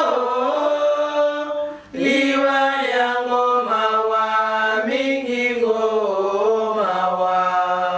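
Women singing a slow, unaccompanied Lingala lament for the death of Jesus, long held notes sliding gently in pitch, with a short breath about two seconds in.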